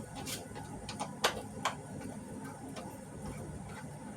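A few light, sharp clicks and taps from hands working on a flat-screen TV's plastic back panel during reassembly, the loudest a little over a second in.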